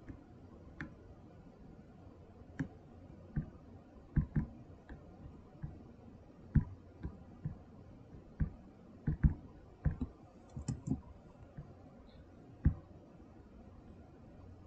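Computer mouse clicking about twenty times at irregular intervals, sometimes in quick pairs, over a faint background hiss.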